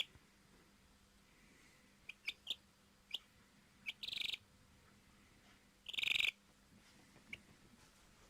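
A hen giving soft, high, short peeps, with two louder brief trilled calls about four and six seconds in: the contented sounds of a happy chicken.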